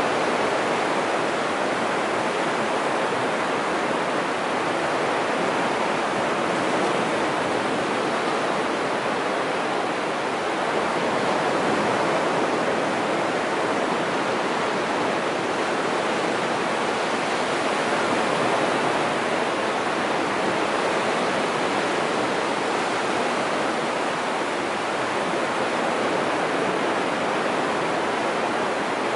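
Surf breaking and washing up a wide, flat sandy beach: a steady rush of waves with only slight swells in loudness.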